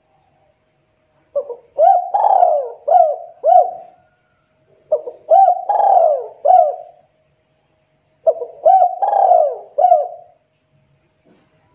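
Spotted dove (tekukur) cooing: three phrases of several arching coos each, about 2 s long with short gaps between them.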